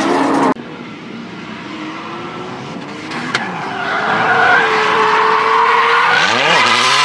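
Drift car sliding with its engine held high and rear tyres squealing. About half a second in the sound drops sharply, then the engine note climbs and the tyre screech builds from about four seconds. Near the end the engine revs up and falls back.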